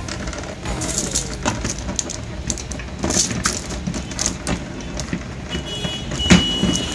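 Plastic drawers of a Napolly plastic drawer cabinet being slid into the frame by hand: a run of hollow plastic knocks, scrapes and clatters, the loudest knock near the end.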